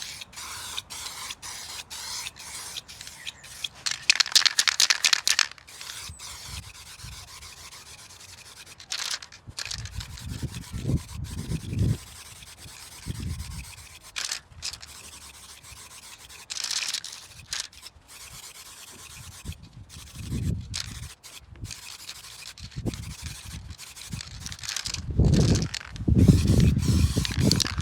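Aerosol can of etch primer spraying in hissing bursts, the longest about four seconds in. Wind gusts rumble on the microphone, strongest near the end.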